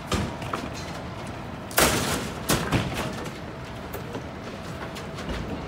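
Sharp bangs from construction work: a small one at the start, a loud one about two seconds in, then two more close behind it, each with a short ringing tail.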